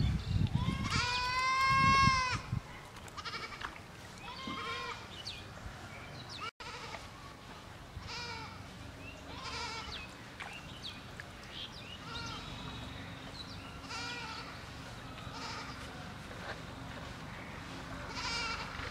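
An animal bleating several times: one long, wavering bleat about a second in, then shorter, fainter bleats every few seconds.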